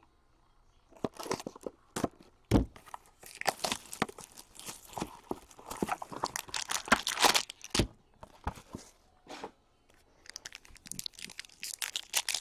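Wrapping on a box of hockey cards being torn open, with crinkling wrapper and sharp clicks and rustles of the packaging, pausing briefly before starting again.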